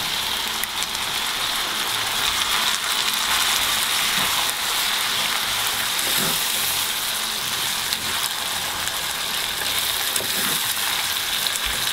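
Minced pork and chopped vegetables sizzling in a frying pan with a steady crackle as grated tomato is poured in and stirred through with a wooden spatula.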